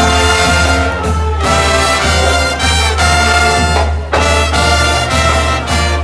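A brass band playing loudly, with trumpets and trombones on held notes that change about every second.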